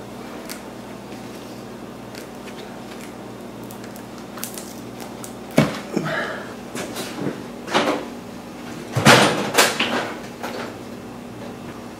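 A few scattered knocks and scraping handling noises over a steady low hum. The loudest cluster comes around nine to ten seconds in.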